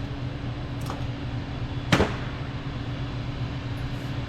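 A steady low hum of shop machinery, with a faint click just before one second in and a single sharp metallic knock about two seconds in, as of a tool or part striking metal during brake work.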